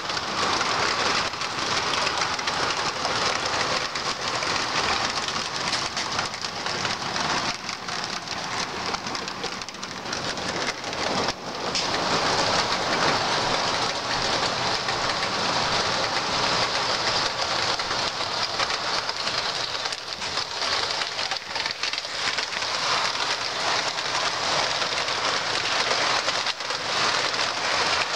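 O scale model freight train running on two-rail track: a steady, dense clatter of metal wheels rolling on the rails. It dips briefly near the middle and is a little louder after.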